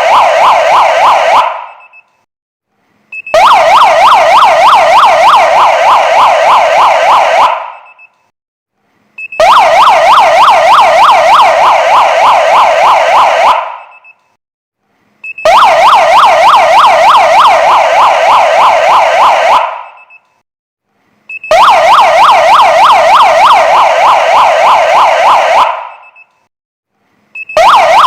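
Kingvox SPMX electronic siren sounding a fast warbling yelp in bursts of about four seconds, switched off and on again about every six seconds. Each burst trails off as it is cut, and a short faint chirp sounds in each gap.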